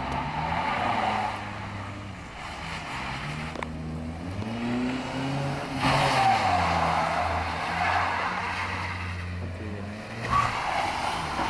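Kia Cerato Koup's tyres squealing and skidding on a sandy road surface as the car is drifted in circles, with its engine revving up and down between slides. The squeal comes in three stretches: at the start, from about six seconds in, and again near the end.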